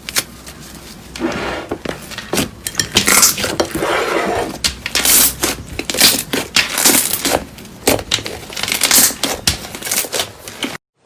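Slime being squeezed, pressed and pulled by hand, giving a dense run of sharp clicks, pops and crackles with wetter squishing stretches. It cuts off suddenly near the end.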